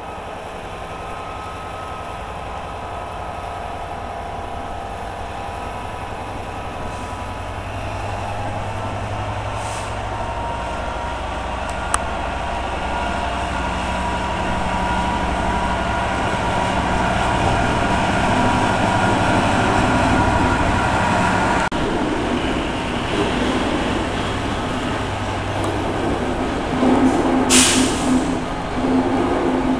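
Class 67 diesel-electric locomotive's two-stroke V12 engine working steadily as it pulls away with a train of tank wagons, growing louder as it passes. Near the end the wagons rumble by, with a brief sharp high-pitched squeal.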